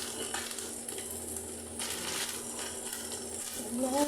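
A pan of chicken, egg and vegetables sizzling as cooked rice is tipped in and stirred, with a few scrapes and knocks of the spatula against the pan.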